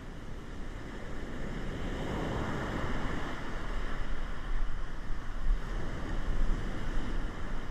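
Heavy surf breaking and washing up the beach, with wind buffeting the microphone. The wash of one wave swells about two seconds in, and the wind rumble gusts near the end.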